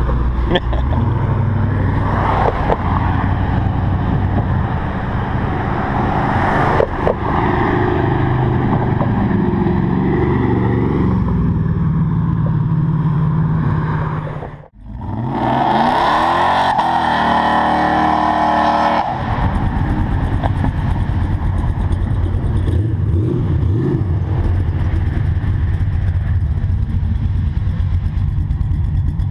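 Chevrolet 454 SS pickup's big-block V8 driving past and revving, its pitch rising partway through. The sound cuts out suddenly about halfway, then V8 engine noise resumes and settles into a steady drone near the end.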